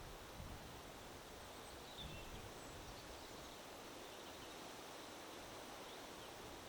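Wind blowing steadily, a faint rustling hiss with low rumbles, and a few faint short bird chirps about two seconds in and again near the end.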